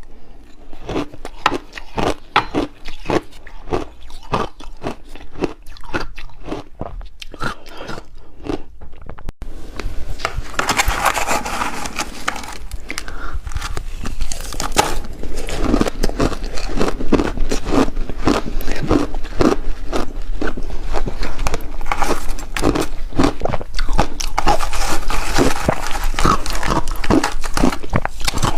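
A person biting and chewing a chunk of refrozen shaved ice, with rapid, crackling crunches. The crunching becomes denser and louder about a third of the way in.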